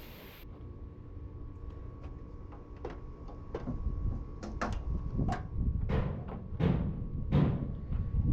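Irregular knocks and clunks, getting louder from about halfway through, over a low rumble and a faint steady tone.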